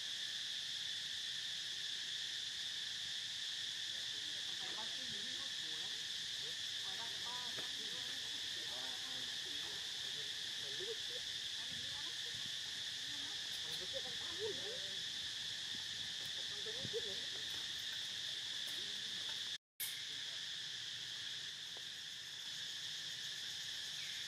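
A steady, high-pitched insect chorus that drones on without a break. A few faint short calls come through it in the middle, and the sound drops out for an instant about 20 seconds in.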